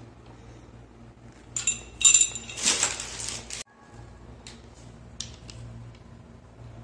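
Metal tap parts and brass plumbing fittings clinking together as they are handled: a few ringing clinks about two seconds in, then about a second of scraping noise that cuts off suddenly, followed by a few light clicks.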